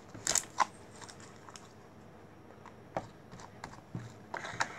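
Soft homemade glue slime being pressed and pulled by hand, giving short sticky clicks and squelches: a few just after the start, one about three seconds in, and a quick cluster near the end.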